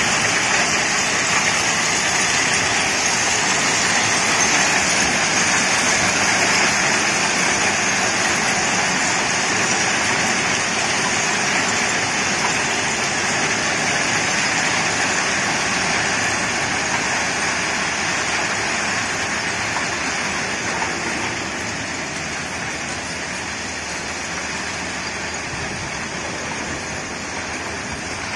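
Crushed-stone ballast pouring out of the bottom discharge chutes of hopper wagons onto the track bed as the train moves: a steady, even rush of falling stone, easing a little about three-quarters of the way through.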